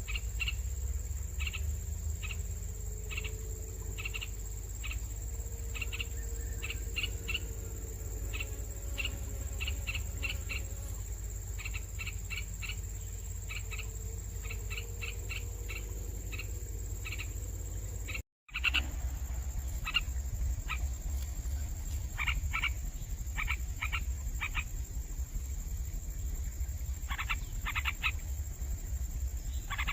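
Nestling birds chirping: short high chirps in quick runs of several at a time, over a steady low rumble. The sound drops out for a split second about two-thirds of the way through.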